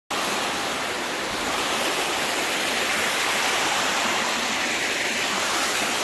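Water pouring over a waterfall: a steady, even rush of noise.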